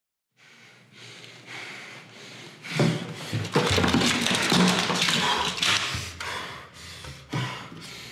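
Heavy breathing with small taps and knocks of pill bottles and a cabinet door being handled at a bathroom sink, louder from about three seconds in.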